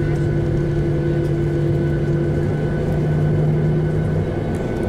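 Boeing 737-800's CFM56 turbofan engines running, heard inside the passenger cabin as the airliner rolls along the runway: a steady rumble with a few held tones, one of which drops away about halfway through.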